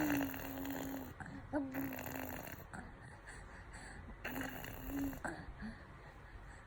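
A four-and-a-half-month-old baby vocalising: three held, rough-edged voiced sounds at a steady pitch, each about a second long, the last one a little over four seconds in.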